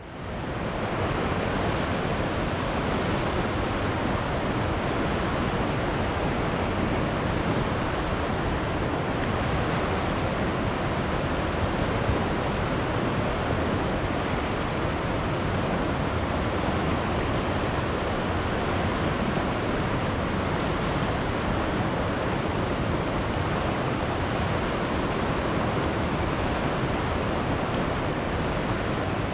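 Steady rush of fast-flowing river water, fading in over the first second and then holding an even level.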